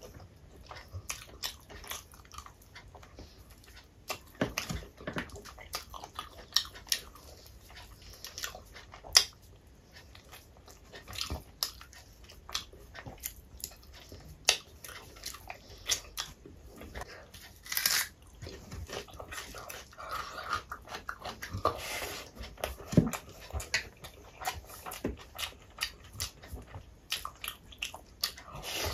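Close-miked chewing and lip-smacking of hand-eaten rice and curry: many short, irregular mouth clicks.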